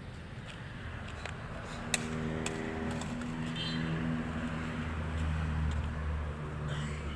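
An engine running steadily at a low pitch, building up about two seconds in. A few sharp knocks of the ball being struck come early in the play.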